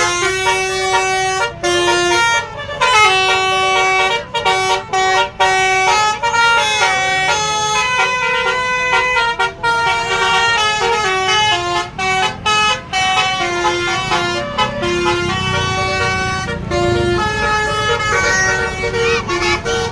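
Basuri telolet multi-tone horn playing a melody, a quick run of short notes stepping from pitch to pitch, with brief breaks between phrases.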